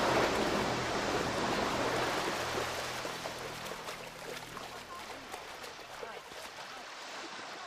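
Film soundtrack of a crowd of bathers rushing out of the surf: a dense wash of splashing water and shouting that gradually dies down, with faint scattered cries in the second half.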